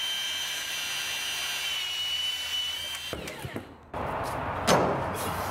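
Cordless powered pipe cutter running on a white plastic pipe: a steady motor whine for about three seconds that stops suddenly, a few clicks, then a second, rougher run starting about four seconds in.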